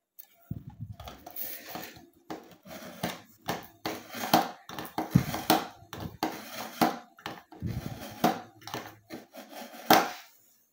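Steel scissor blade drawn back and forth through the slot of a BAUM ZINDECH ZRT-400 manual knife-and-scissor sharpener: a long run of irregular scraping strokes and clicks of metal on the sharpener, with one sharp knock near the end.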